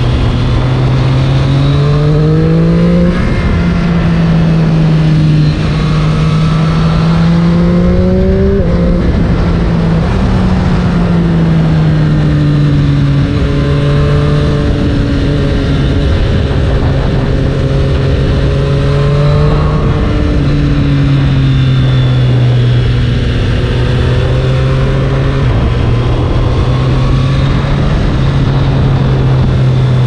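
Triumph Street Triple RS's 765 cc inline three-cylinder engine under way, heard from the rider's seat over wind rush. The revs climb and drop sharply twice in the first nine seconds as it pulls through the gears, then fall away and hold steady at a cruise.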